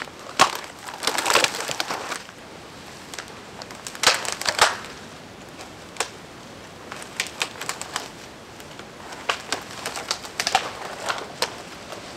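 Dry, dead conifer branches and twigs snapping and crackling as they are broken off and pulled by hand, in bursts of quick sharp cracks separated by short pauses.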